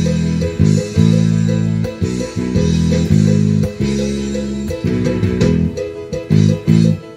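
Electric bass guitar being played: a line of sustained plucked notes, changing pitch every half second or so.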